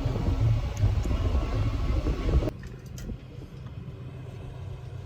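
Car running, heard from inside the cabin: a loud low rumble that drops suddenly to a quieter steady hum about halfway through.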